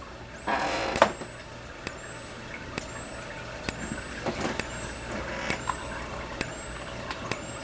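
A 1993 Wheelock speaker strobe flashing about once a second. Each flash is a sharp click followed by a faint high whine that rises and levels off as the strobe recharges, with a short rustle just before the first flash.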